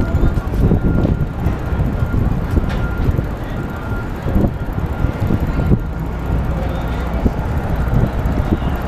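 Wind buffeting the microphone of a bike-mounted action camera as the bicycle rolls along, a gusty low rumble, with city street noise beneath it.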